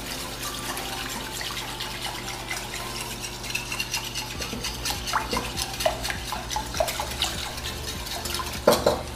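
Wire whisk stirring baking soda into a glass bowl of warm water until it dissolves: steady swishing and sloshing with many light clicks, and one louder knock near the end.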